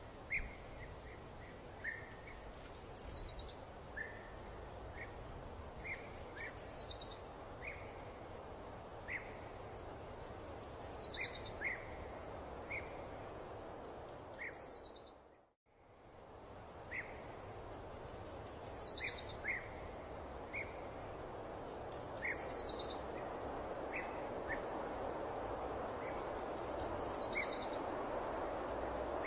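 Birdsong over a steady background hiss. One bird repeats a short, high, falling trill about every four seconds, and shorter single chirps sound in between. Near the middle all sound drops out briefly and fades back in, like a loop joining.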